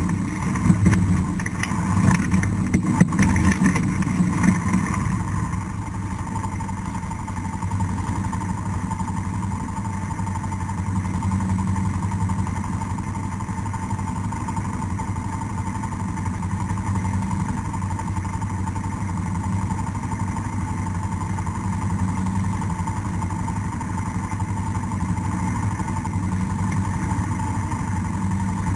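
ATV engine running, louder and uneven for the first few seconds, then settling to a steady drone.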